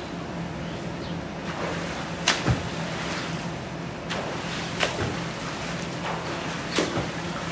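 Swimming-pool water splashing and lapping. A swimmer's strokes give sharp slaps, in pairs about every two and a half seconds, over a steady low hum.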